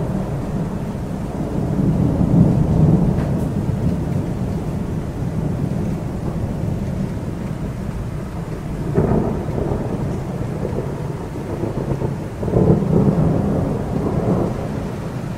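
Thunder rumbling over steady city rain during a summer storm. The rumble swells about two seconds in, again around nine seconds, and most strongly about thirteen seconds in.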